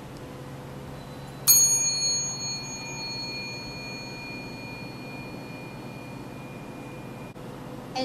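A small metal bell rings once about a second and a half in, its tone lingering and fading slowly over about six seconds. A short click comes near the end.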